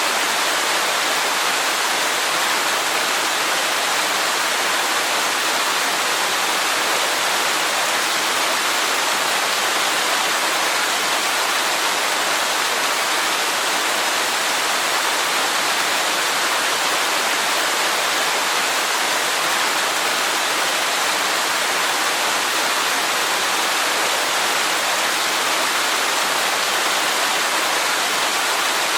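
Waterfall rushing steadily: an even, unbroken hiss of falling water, weighted to the higher pitches with little low rumble.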